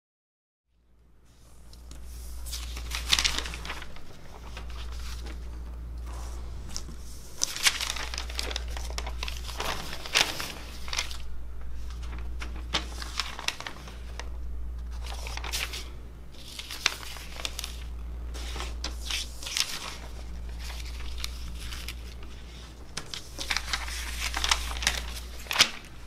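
Sheets of lined notebook paper being handled, flipped and shuffled on a desk: rustling and crinkling in repeated bursts with sharp crackles, starting about a second in, over a steady low hum.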